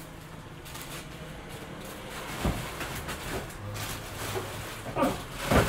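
Off-camera handling noises with a few short knocks: one about two and a half seconds in and two near the end, the last the loudest.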